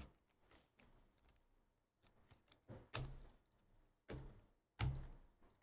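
A few soft, scattered clicks and knocks of cards and card cases being handled on a tabletop, with quiet in between.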